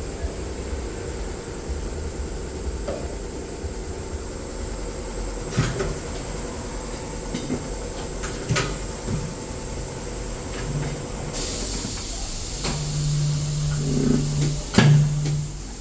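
Workshop sounds over a steady background hum: a few sharp knocks, a hiss starting past the middle, and a low motor hum for a few seconds near the end.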